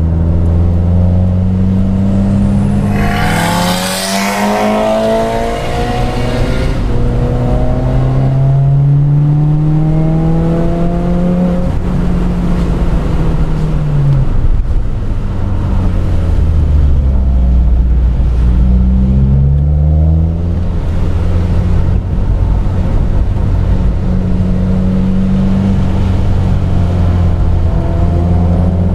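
Subaru WRX's turbocharged flat-four engine under hard track driving, its note repeatedly climbing through the revs and dropping back at gear changes and braking. A loud rushing hiss comes about four seconds in.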